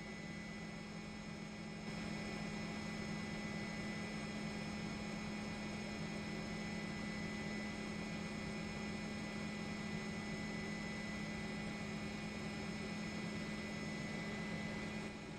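A steady hum with a strong low tone and a few faint higher whines, with no speech. It steps up a little in level about two seconds in.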